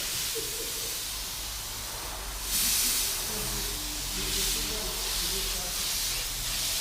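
Paint spray gun hissing steadily as it lays a fine mist of clear water-based primer onto a sanded leather car seat. The hiss grows louder about two and a half seconds in.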